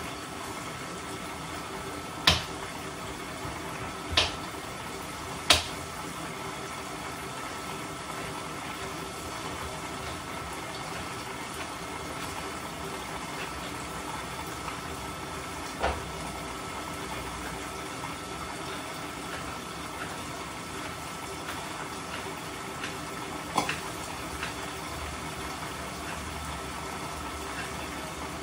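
Food deep-frying in hot oil: a steady sizzle, broken by a few sharp pops or clicks, three in the first six seconds and two more later on.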